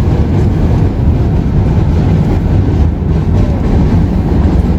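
Loud, steady low rumble of heavy vehicle noise from a moving bus in city traffic.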